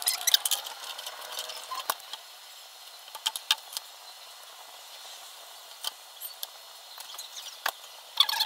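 Scattered light clicks and taps as a plastic quadcopter is handled and turned over on a wooden table, over a steady hiss. The clicks come thicker near the end.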